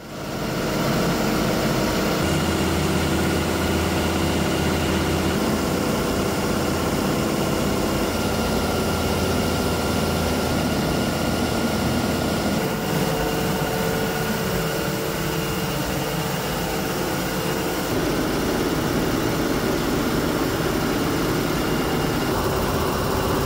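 Grasso RC 911 ammonia reciprocating compressor and its electric drive motor running steadily: a dense mechanical clatter over a low hum.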